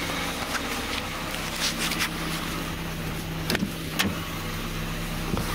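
Chevrolet Beretta's four-cylinder engine idling steadily while still warming up after a cold start. Two sharp clicks about three and a half and four seconds in, as the car door is opened.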